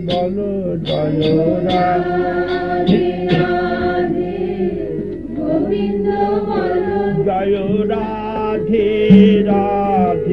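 Hindu devotional kirtan: voices singing a chant, holding and bending long notes, with a few sharp clicks in the first second or two.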